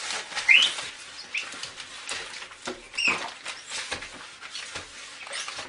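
Crumpled newspaper rubbed over window glass to dry it: irregular rustling and scrubbing strokes, with a few short squeaks of paper on glass, about half a second in and again near three seconds.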